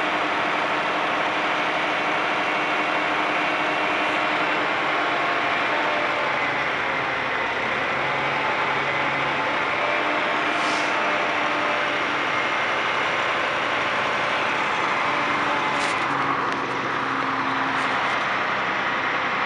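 Peterbilt semi's diesel engine running steadily while the hydraulic hoist raises the end-dump trailer to tip its load of sand. A few short, high hisses come through about halfway and again near the end.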